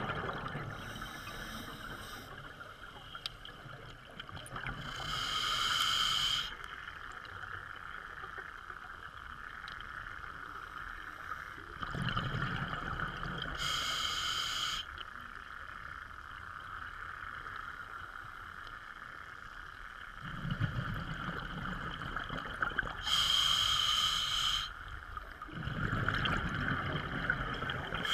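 Scuba diver breathing through a regulator underwater: a few breath cycles several seconds apart, each a hissing inhalation with a thin whistle and a low bubbling exhalation, over a steady hiss.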